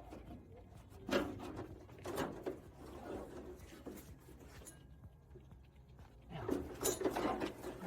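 Intermittent rustling, scraping and light knocks of hand work inside a car door: a new window seal being pushed down into the door and fished for with needle-nose pliers. The busiest stretch is near the end.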